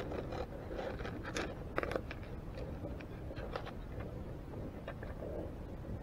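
Underwater clicks and scrapes of green shore crabs' shells and legs against the camera housing and the trap's netting, a quick cluster in the first two seconds with the loudest just before the two-second mark, then a few scattered ticks, over a steady low rumble.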